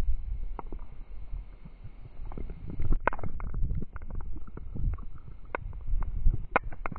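Low wind buffeting on the microphone of a GoPro Session camera whirled around on a spinning poi, with frequent sharp clicks and rattles from the metal chain and the camera's mount.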